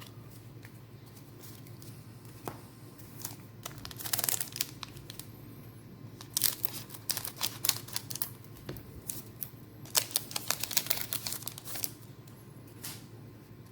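Trading card booster packs and cards being handled: bursts of crisp crinkling, tearing and card clicks about four seconds in, again from about six to eight and a half seconds, and from about ten to twelve seconds.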